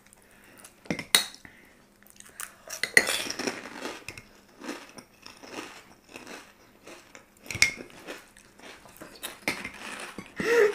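Metal spoons clinking and scraping against plates and bowls while filling fuchka shells, mixed with the crunching and chewing of the crisp puri shells. The clinks and crunches come in short, irregular bursts.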